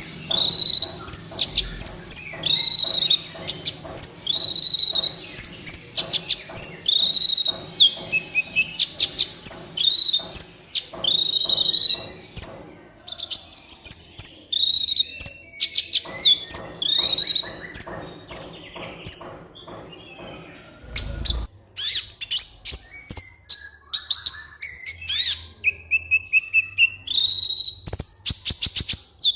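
Kolibri ninja sunbird singing a fast, high chirping song of repeated short, bending notes with quick clicks, looped as a lure and training recording. The song falls briefly away about two-thirds through, then returns with a quick run of even notes.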